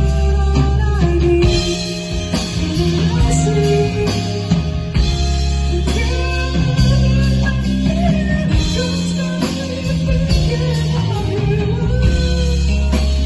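A band playing a rock song, led by guitar over drums and a heavy, steady low end.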